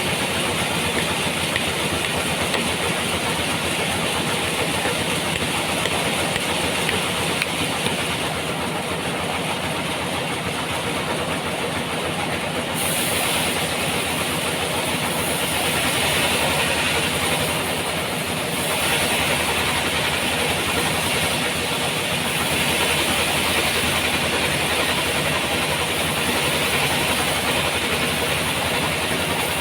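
Sawmill running steadily: a machine drone under a strong hissing saw noise that gets louder about halfway through.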